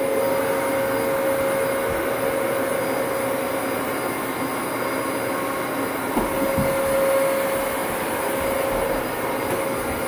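Dyson upright vacuum cleaner running with a steady whirring hum, a couple of brief low knocks about six seconds in.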